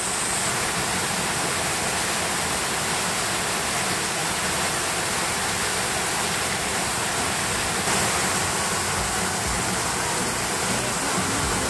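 Rushing water: a steady, even rush with no separate splashes or changes.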